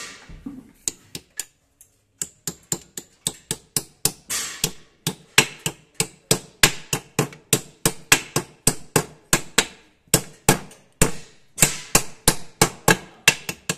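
Hammer tapping repeatedly on a steel plate over the bearing of a power tiller gearbox, seating it around the shaft: a few scattered knocks at first, then a steady run of about three sharp metallic blows a second.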